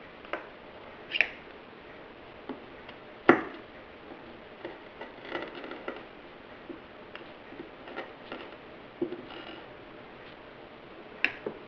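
Scattered light clicks and taps of wires and a Deans connector being handled during soldering, the sharpest one about three seconds in, with a short rustle of handling in the middle.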